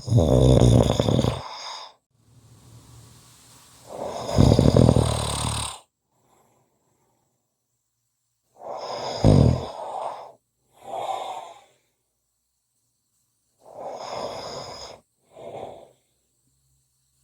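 Snoring: six rattling snore breaths in three pairs, the first pair loudest, with silent pauses between them.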